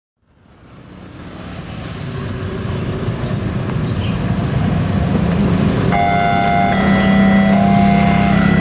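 Cars and motorbikes running through a railway level crossing. About six seconds in, the crossing's warning siren starts sounding, loud, with a trembling tone that shifts pitch about once a second, warning that a train is coming.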